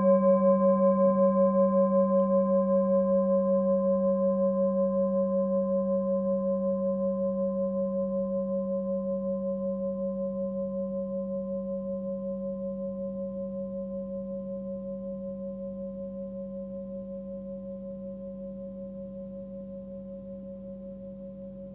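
Hand-forged singing bowl tuned to G (about 195 Hz, 20.8 cm across) ringing on after a single strike, its low hum and higher overtones fading slowly and evenly, with a steady pulsing waver in the tone.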